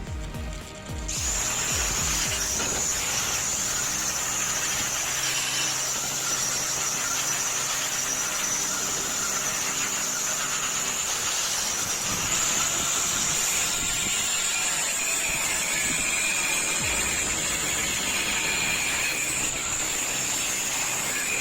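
Angle grinder cutting through thick steel plate: a steady high-pitched whine over the hiss of the cut, starting about a second in and running evenly.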